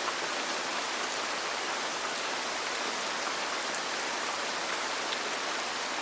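Steady rain falling on a roof: a continuous, even hiss.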